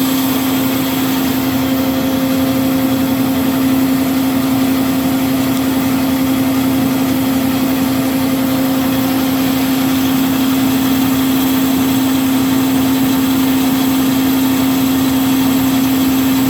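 Marvel MV525 vertical bandsaw running, its blade cutting through thick-walled steel rectangular tube, with a loud steady machine hum throughout.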